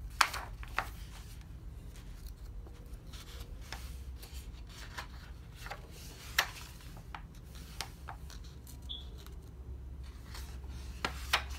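Thin pages of a large paperback coloring book being turned over and smoothed flat by hand: paper rustling and swishing, with several sharper crackles, the loudest just after the start and about six seconds in.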